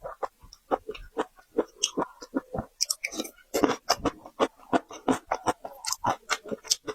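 A person chewing raw marinated tiger prawns with a crunchy peanut sauce, with rapid crunches and clicks several times a second.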